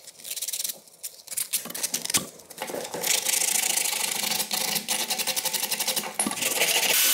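Rusty old steel knife blade being sanded by hand with sandpaper to take off the rust. At first it is short, separate rasping strokes; from about two and a half seconds in it becomes a fast, even back-and-forth scrubbing.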